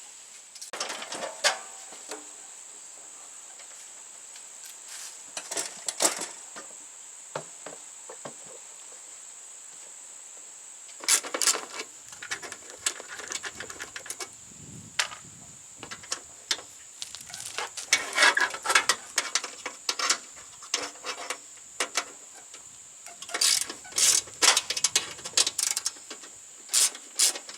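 Hand tools working on a riding mower's clutch linkage: scattered bursts of metallic clicking and rattling, ending in a run of quick, evenly spaced clicks.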